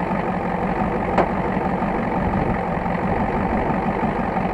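1985 Ford F350's 6.9 IDI V8 diesel engine idling steadily, with a single sharp click about a second in.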